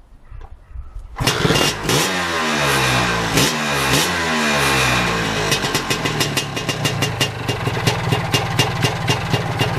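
A Lambretta Series 2 SS225 two-stroke scooter engine starts about a second in and is revved up and down a few times, then settles to idle with a rapid, regular metallic clicking. The owner suspects a big end or little end bearing.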